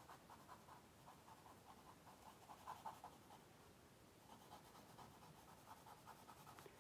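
Faint scratching of a charcoal stick on paper: quick short shading strokes, about four a second, with a pause of about a second in the middle.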